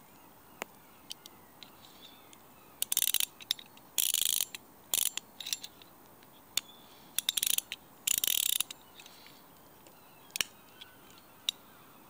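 Angler Scout 8-80 sidecast centrepin reel's ratchet check clicking as the drum is turned. Several short bursts of rapid clicking, the longest about half a second, come with scattered single clicks between them.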